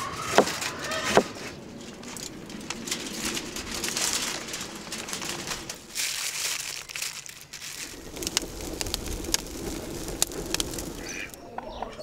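A knife cutting through citrus and striking a wooden board a couple of times, then rustling and handling noise as wet clay is packed by hand over aluminium foil. Birds call in the background.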